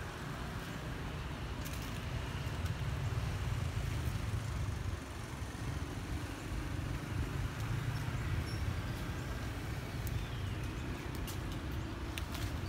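Steady low rumble of road traffic, with a few light clicks near the end.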